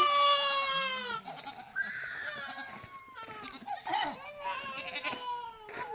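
An animal bleating: a long, high, wavering call at the start and another long call about four seconds in.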